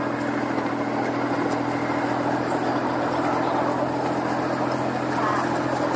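Miniature ride-on locomotive's engine running steadily as the train rolls along its track: an even engine hum over continuous running noise.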